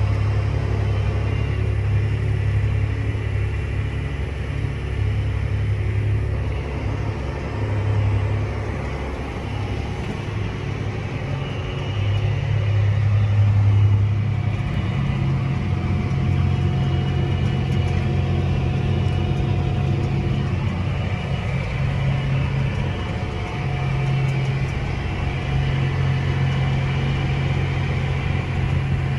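Tractor engine running steadily, a low hum that shifts in pitch a few times and swells briefly about halfway through.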